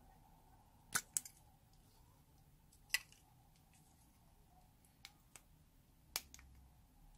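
Sharp clicks of a plastic lipstick tube being handled as its snap-on cap is pulled off and the case turned: about six in all, two close together about a second in and the last near the end.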